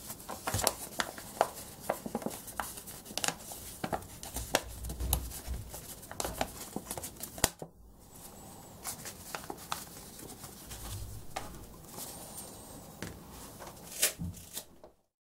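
A sheet of A4 paper being folded and creased by hand into an origami boat: rustling and crinkling with many sharp paper crackles and snaps. The sound stops just before the end.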